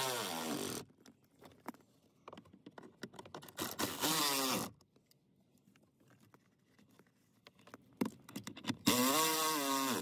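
Small electric screwdriver running in the new blower motor's three mounting screws: three short whirring runs, the pitch rising and falling as each screw takes load. The first run ends about a second in, the second comes around four seconds in and the third near the end, with light clicks of handling between.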